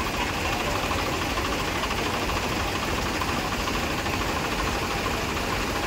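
Diesel tractor engine idling steadily, with an even, unchanging firing rhythm.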